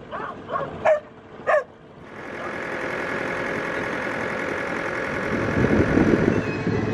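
A dog barks several times, about twice a second, over the first second and a half. Then a steady rushing noise with a low rumble from a sailboat under way takes over and grows louder in the last second or so.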